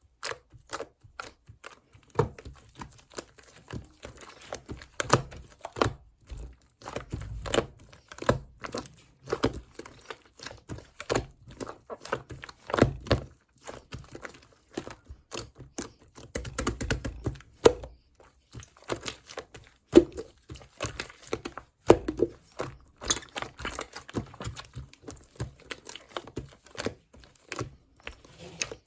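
Slime being squished, stretched and poked by hand, giving an irregular run of sticky clicks, pops and soft thuds.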